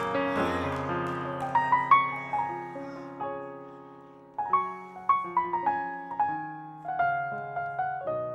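Korg stage keyboard played in a piano voice: held chords at first, then single notes struck one at a time, each ringing and fading away.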